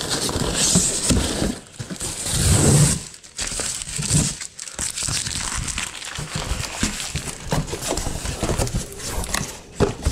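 Cardboard moving boxes handled and opened: flaps folded back, a box shoved and scraped about, and paper and plastic packing inside rustling and crinkling, with the loudest scuffing about two to three seconds in.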